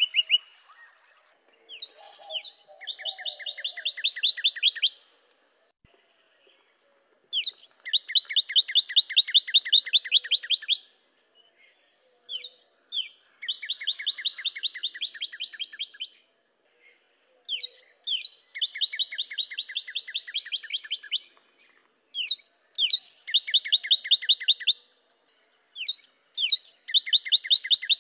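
Northern cardinal singing: six song phrases, each opening with a couple of slurred whistles and going into a quick run of repeated notes two to three seconds long, with short pauses between phrases.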